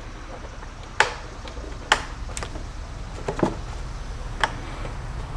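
Hand tool clicking against metal while a small screw is backed out of the mass airflow sensor: a handful of short, sharp clicks about a second apart over a faint low hum.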